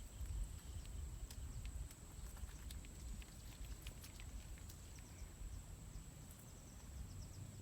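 Faint outdoor ambience: a low rumble, a steady thin high-pitched whine, and scattered light clicks and taps.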